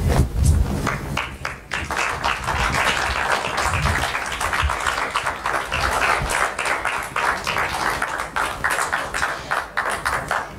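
Audience applauding, the clapping starting about a second in and running on steadily.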